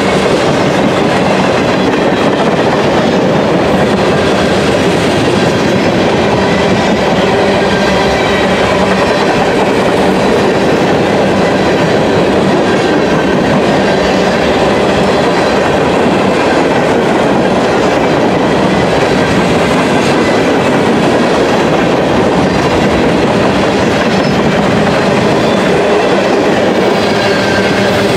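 A long mixed freight train of boxcars, tank cars and coal gondolas rolls past close by: the loud, steady rumble and clatter of steel wheels on the rails as car after car goes by.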